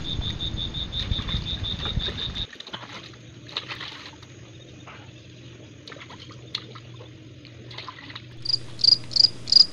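A cricket chirping loudly and evenly, about three chirps a second, starting near the end. Before it, in a quieter stretch, clothes are scrubbed by hand in a basin of soapy water, with faint splashes and wet clicks. At the start, a fast high pulsing over a low rumble cuts off suddenly.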